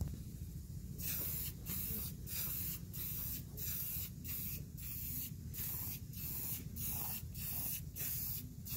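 Aerosol spray paint can spraying black paint onto steel tubing in short hissing bursts, about one and a half a second with brief gaps between, starting about a second in.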